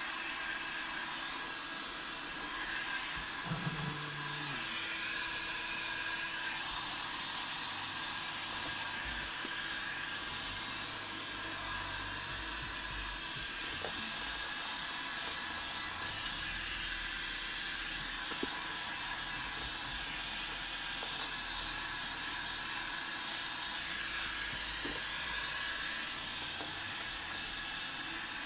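Handheld heat gun running steadily, its blown air making a constant hiss as it warms vinyl wrap film.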